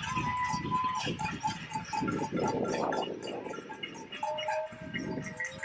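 A neighbourhood crowd making noise: rapid clapping and banging, with held whistle or horn tones and whooping, cheering voices.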